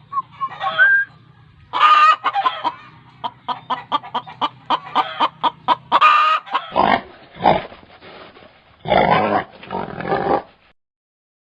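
Chickens clucking, with a run of quick, closely spaced clucks, followed about six and a half seconds in by four louder, harsher calls from another farm animal.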